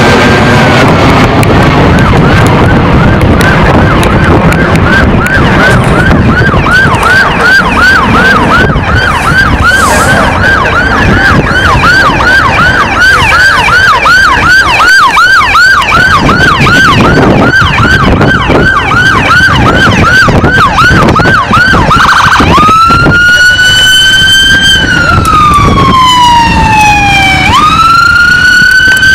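Airport fire engine's electronic siren on a fast yelp, rising and falling about three times a second, then switching about three-quarters of the way through to a slow wail that climbs, falls and climbs again. The truck's engine runs underneath.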